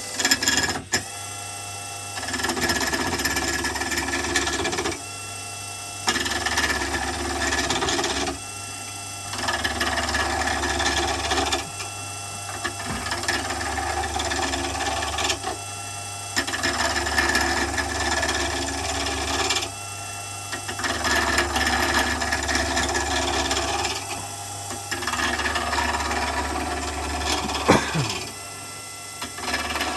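Small wood lathe spinning a wooden pen blank while a hand-held turning tool cuts it in repeated passes: about seven stretches of a few seconds of cutting, each broken by a pause of about a second in which only the lathe's steady motor hum is left. There is a sharp click about a second in.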